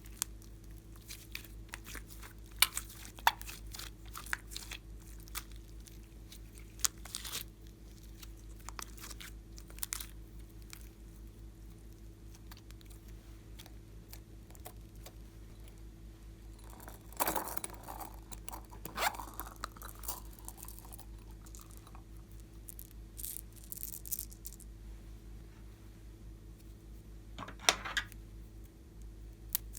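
Slime being squeezed and stretched by hand: scattered crackles and small clicks, with a denser run of crunchy crackling a bit past halfway and another short burst near the end, over a steady low hum.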